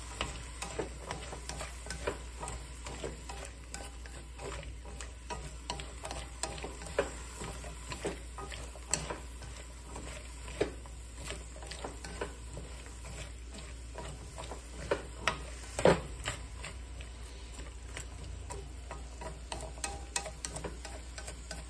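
Sliced bitter melon stir-frying in a nonstick pan: a faint steady sizzle with irregular clicks and taps of wooden chopsticks against the pan, the loudest tap about 16 seconds in.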